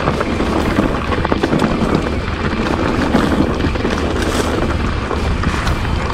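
Mountain bike clattering over rocky singletrack on a descent: a steady rumble of tyres on stones with many small knocks and rattles from the bike, and wind buffeting the microphone.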